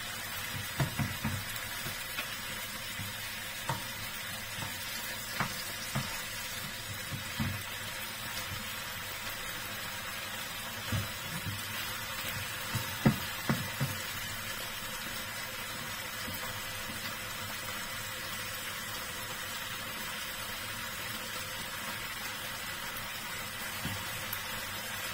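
Pieces of salmon belly sizzling steadily in oil in a frying pan, with occasional short knocks of a spatula against the pan as they are moved, mostly in the first half.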